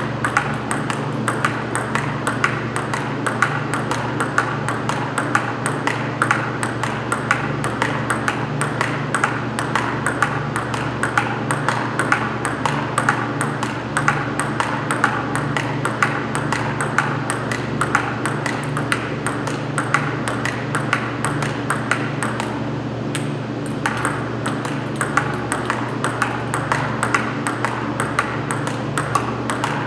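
Table tennis balls being struck back and forth: a continuous run of sharp clicks off bats and table, over a steady low hum.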